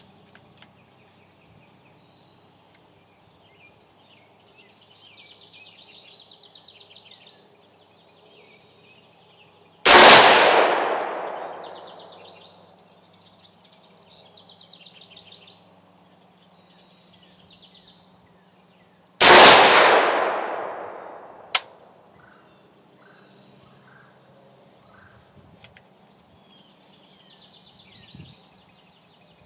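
Two single shots from a Head Down Defense HD15 AR-15 rifle firing 55-grain full metal jacket rounds, about nine seconds apart. Each is a sharp crack followed by an echo that fades over a couple of seconds. A short tick comes a couple of seconds after the second shot, and birds chirp between the shots.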